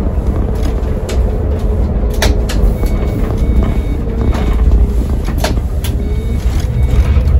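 Inside an Iveco Crossway Line bus on the move: its Iveco Cursor diesel engine and ZF six-speed automatic gearbox running with a steady low rumble and a faint wavering whine, with several sharp clicks and rattles from the cabin.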